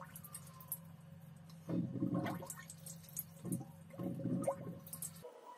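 Watery gurgling in a few short bursts, about two seconds in and again from about three and a half seconds, over a steady low hum that cuts off suddenly near the end.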